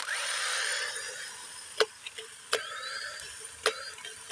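Sharp, irregular clicks about a second apart, from hand tools working on the starter motor's cable connections, over a steady hiss.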